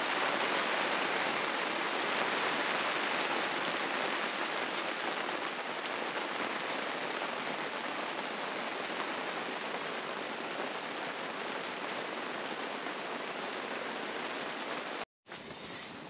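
Heavy rain beating steadily on a tent's fabric roof, a dense, even hiss. It cuts off abruptly about a second before the end, leaving a fainter hiss.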